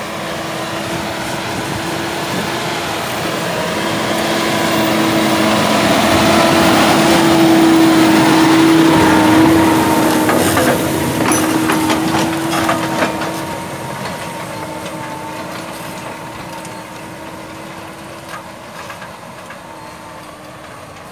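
John Deere 6215 tractor's six-cylinder diesel engine running under load as it pulls a heavy plough through the soil, a steady drone. It grows louder as the tractor passes close, then fades as it moves away, with a few clattering clicks near the loudest point.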